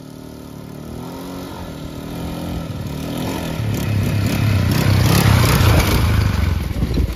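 ATV (quad bike) engine revving as it approaches, growing steadily louder to a peak about five to six seconds in, then dropping away near the end.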